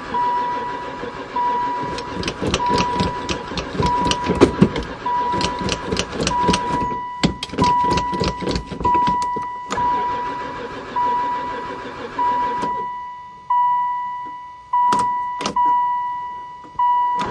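A long-parked van's starter cranking the engine in a rhythmic churn for about twelve seconds without it catching, then stopping; the engine is not firing, likely for lack of fuel. A repeating electronic warning chime beeps throughout, and two sharp clicks come after the cranking stops.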